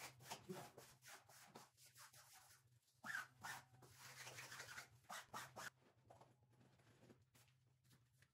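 Faint, quick scraping strokes of a hand smoothing tool rubbed over flex wallpaper to press it onto the wall, in runs that thin out after about six seconds, over a steady low hum.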